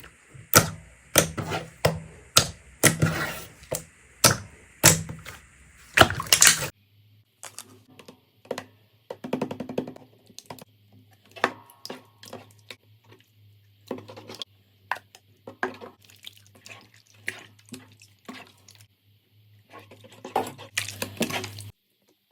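Slime being squished and pressed by hands: a run of sharp, wet squelches and pops, loud at first, then quieter sticky clicks and crackles after a change of clip.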